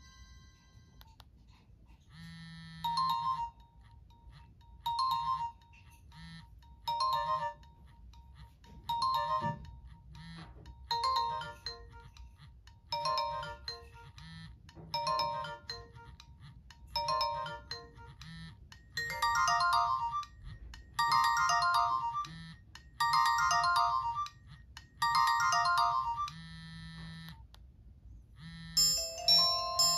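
Nokia X1 ringtone playing: a short electronic phrase repeated about every two seconds, growing fuller and louder partway through. Near the end a different ringtone starts.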